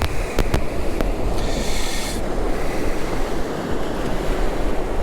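Surf and wind on the microphone make a steady rushing noise. There are a few sharp clicks in the first second and a brief higher hiss about a second and a half in.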